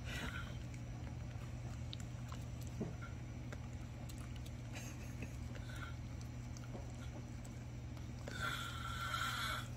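A dog licking and chewing pieces of desalted gompi kelp from a hand, heard as faint, scattered wet mouth clicks and smacks over a steady low hum. A short breathy sound comes near the end.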